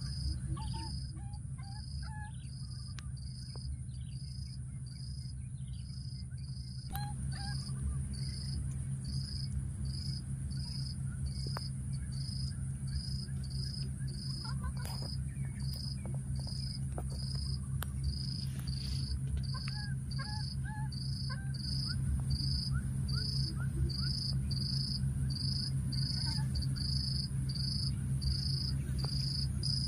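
Insects calling in the undergrowth: a continuous high drone with a steady pulsing chirp a little more than once a second, over a low steady hum. A few faint short chirps come and go.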